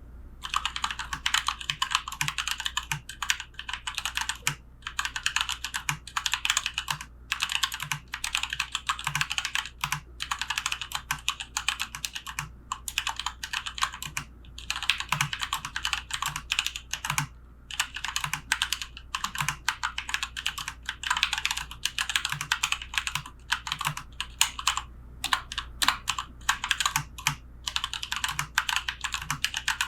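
Fast, continuous typing on a Keychron K2 wireless mechanical keyboard with Gateron Brown tactile switches, a dense run of key clacks broken by short pauses every few seconds.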